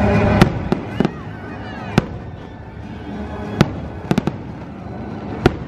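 Fireworks going off: about ten sharp, unevenly spaced bangs, with three in quick succession about four seconds in. The show's soundtrack music plays loudly at the start and fades under the bangs.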